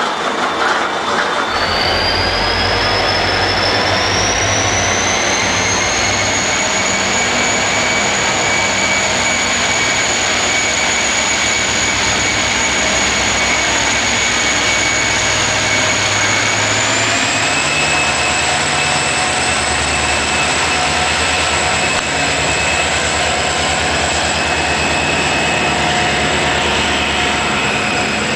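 Korail diesel locomotive running as it pulls a train of passenger coaches out: a steady low engine drone with a high whine that climbs over the first few seconds, then steps up in pitch about two-thirds of the way through.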